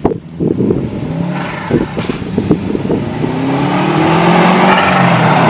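Turbocharged Subaru WRX engine accelerating, its pitch rising and growing steadily louder through the second half.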